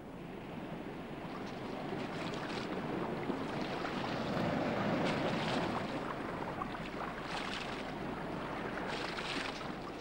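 Sea water washing and splashing, a steady rush that swells to its loudest about halfway, with a few sharper splashes in the second half.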